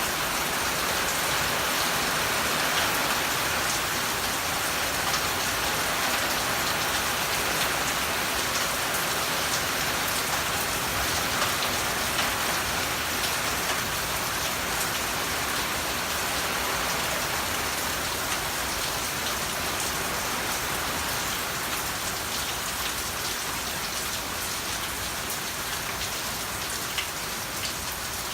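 Thunderstorm rain falling steadily, a dense hiss with the patter of individual drops. It eases slightly toward the end.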